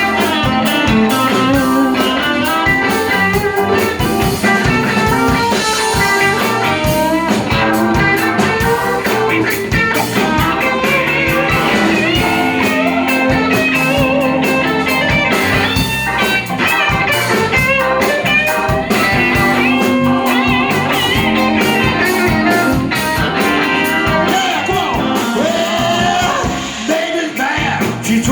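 Live blues band playing an instrumental stretch of a rhythm-and-blues number, with guitar prominent over bass and drums.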